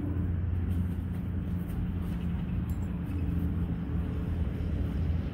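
Steady low mechanical hum with a few held low tones.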